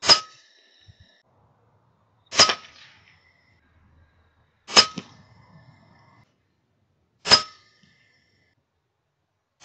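Four shots from an FX Impact M3 .22 PCP air rifle firing 25.5-grain slugs, about two and a half seconds apart. Each is a sharp crack followed by a brief metallic ring.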